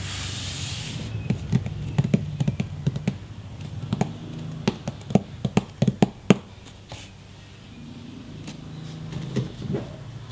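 A hand brushing over a cardboard box, then a run of irregular sharp taps and pats of fingers on the cardboard for about five seconds, with a few softer handling sounds near the end as the box is gripped.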